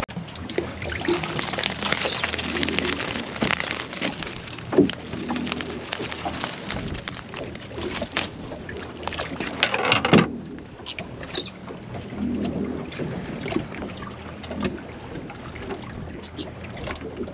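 Water splashing beside a boat's hull, with scattered knocks and crackles and a loud knock about ten seconds in; after that it goes quieter, leaving wind and small handling clicks.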